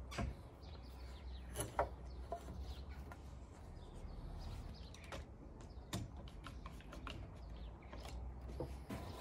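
Steady low outdoor rumble with a few scattered small clicks and knocks as hand tools are handled against the timber frame.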